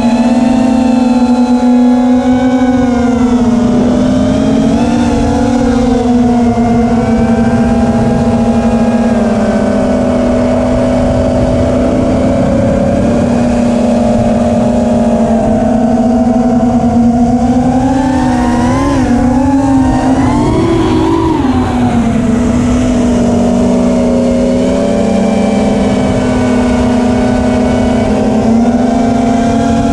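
Racing quadcopter's four DYS Samguk 2207 2600kv brushless motors and propellers whining in flight, heard close up from the onboard camera. The pitch holds steady, then rises and wavers with throttle changes about two-thirds of the way through, over a rush of wind.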